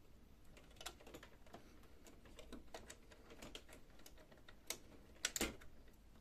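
Faint scattered plastic clicks and small knocks as a Brother HL-5250DN pickup roller module is fitted into its hole in the printer and slid sideways into place, with a louder quick cluster of clicks about five seconds in.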